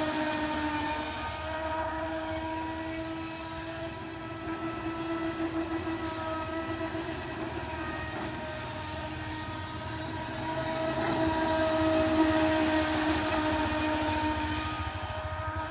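Radio-controlled model boat's motor running at speed, a steady high whine with several even overtones that wavers slightly in pitch and swells louder about three quarters of the way through as the boat comes closer.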